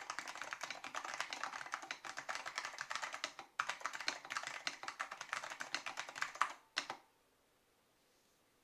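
Rapid typing on an Apple M0116 keyboard with Alps SKCM Orange switches: a dense run of key clicks with a brief pause about halfway. The typing stops about seven seconds in.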